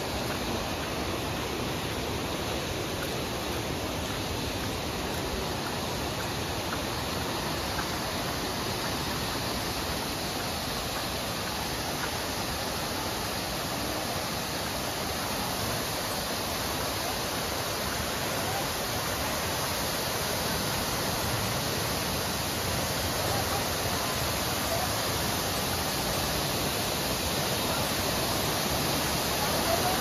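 Rushing river water, a steady noise that grows a little louder near the end.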